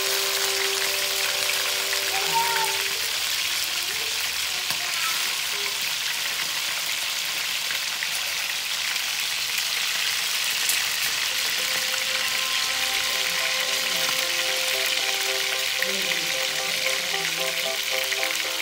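Pieces of whole fish frying in hot oil in a wok: a steady, even sizzle.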